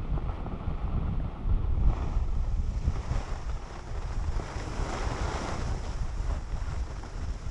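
Wind buffeting the microphone of a camera carried by a skier on the move, a steady low rumble, with the hiss of skis sliding over groomed snow swelling about four to six seconds in.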